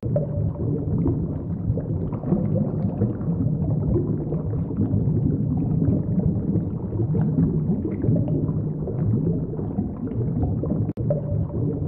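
Underwater ambience picked up by a submerged camera: a dense, steady low rumble and gurgle of moving water, with a brief dropout near the end.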